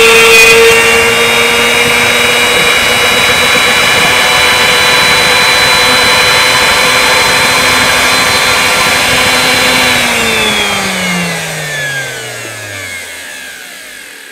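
CNC router spindle, a wood router motor, running with a steady high whine. About ten seconds in it is switched off at the end of the cut and spins down, its pitch falling and the sound fading away.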